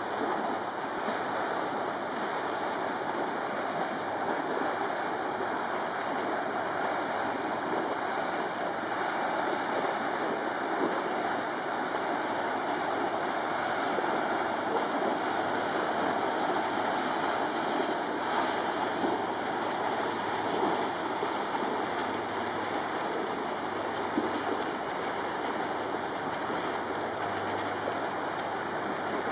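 Steady rushing of canal water churned by a passing inland cargo convoy, with a faint low engine hum.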